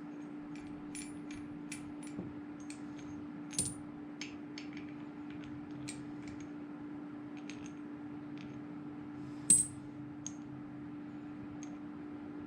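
Small metal parts of a pipe vise clinking and tapping against each other during reassembly, in scattered light clicks, with a sharper ringing clink about nine and a half seconds in. A steady low hum runs underneath.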